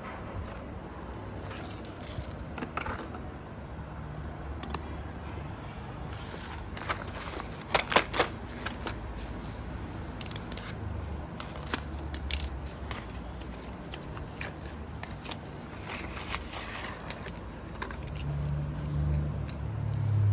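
Slate pencils and their parcel packaging being handled: scattered clicks, clinks and short scrapes, with a cluster of sharper clicks about eight seconds in. A low hum grows louder near the end.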